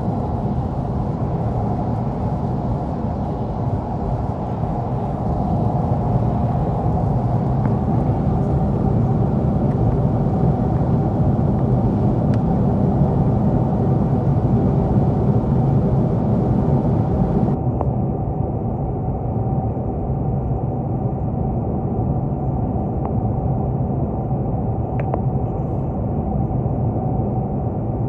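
Steady low road noise heard from inside a car's cabin while driving on the highway: tyre rumble and engine hum.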